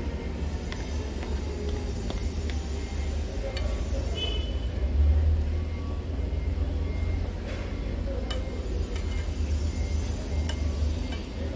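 Fork scraping food out of a plastic bowl into a frying pan, with scattered light clicks of metal on the bowl and pan rim, over a steady low rumble.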